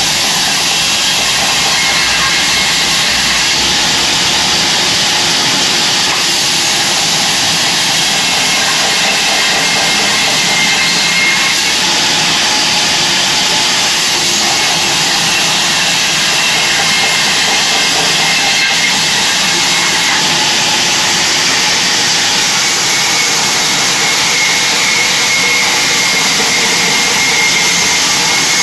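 Large vertical sawmill bandsaw running and ripping a thick wooden slab: a loud, steady hiss of the blade through the wood, with a faint high whine that comes and goes.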